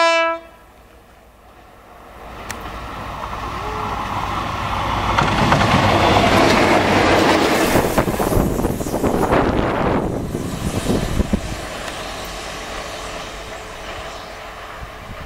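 Diesel locomotive No. 1012 ends a short horn blast at the very start. Then its engine and wheels grow louder as it passes close by, with wheel clatter over the rails at the loudest point, and the sound fades as it pulls away.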